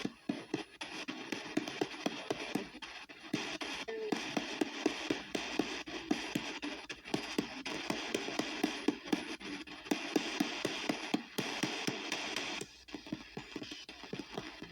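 P-SB7T spirit box scanning the AM radio band at a fast 250 ms sweep: a steady rush of static broken by rapid clicks and clipped fragments of broadcast audio as it jumps from station to station.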